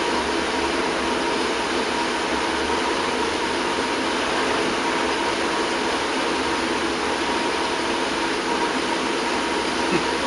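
Steady machine hum and hiss with a constant high tone.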